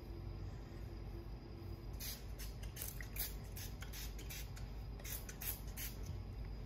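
A pump spray bottle of Color Wow Dream Coat for curly hair misting wet hair in a quick run of short hisses, about three a second, starting about two seconds in.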